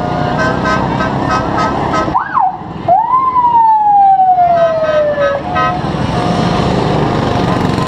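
A siren sounding: short repeated tones, then a quick rise and fall about two seconds in, then a wail that climbs and slowly falls away for about two seconds. Small go-kart engines run underneath.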